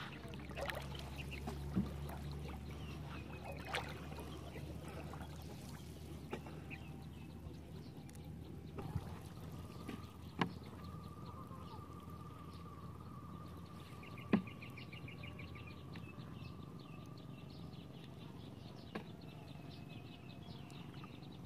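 Quiet outdoor ambience: light water splashing and trickling with a few sharp knocks, and small birds chirping in the background, including a rapid trill a little past the middle.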